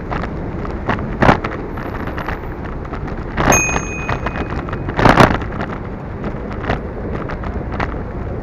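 Wind rushing over the microphone and road rumble from a moving bicycle. Several sharp knocks from bumps in the road come through, the loudest about five seconds in. A brief high squeal sounds about halfway through.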